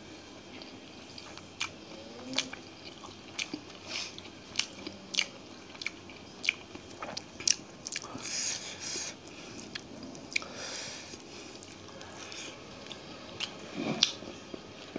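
Close, clip-on-microphone mouth sounds of a man eating rice and katla fish curry by hand: wet chewing with a string of short lip-smacking clicks, roughly one every half second to second.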